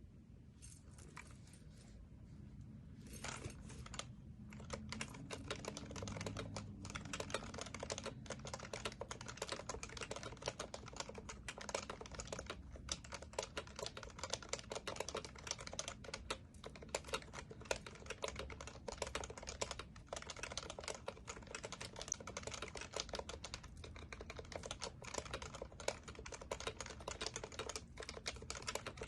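Typing on an HHKB Professional Classic keyboard with Topre electrostatic capacitive switches, a rapid, continuous patter of keystrokes. There are only a few scattered key presses in the first three seconds before steady typing begins.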